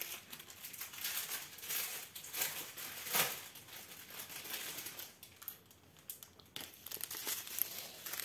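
Plastic packaging crinkling and rustling as it is handled, irregular and loudest about three seconds in: the strips of small plastic bags holding diamond-painting rhinestones.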